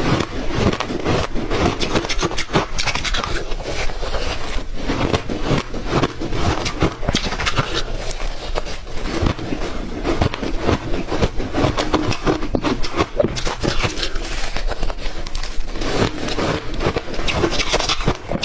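Close-miked chewing of clear ice: a dense, unbroken run of sharp cracks and crunches as cubes are bitten and ground between the teeth.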